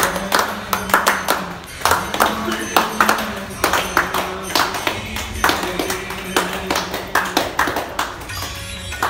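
Voices chanting a Hindu aarti over sharp, rhythmic strikes about twice a second.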